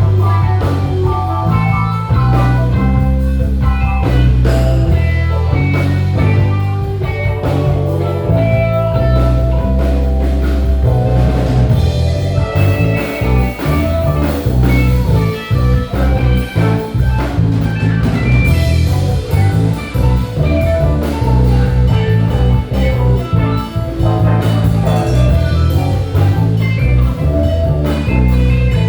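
Live band playing a blues-flavoured instrumental groove: guitar lead over electric bass, drum kit and keys, with a heavy bass line throughout.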